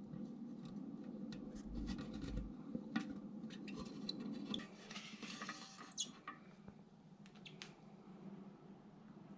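Faint handling noises from toilet flush valve parts: scattered small clicks, scrapes and squeaks, with a denser stretch of scratchy rubbing about five seconds in.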